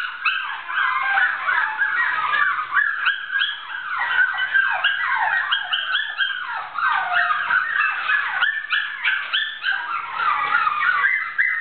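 Rat terriers whining and yipping nonstop in short, high calls that fall in pitch, several a second and overlapping one another.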